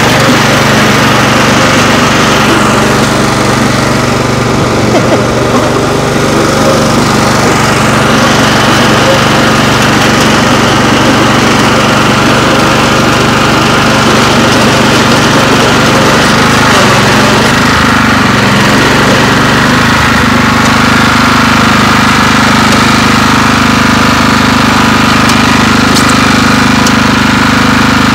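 Craftsman riding lawn tractor's engine running steadily as the tractor drives across the lawn, heard close up from the driver's seat. Its note changes slightly about two-thirds of the way in.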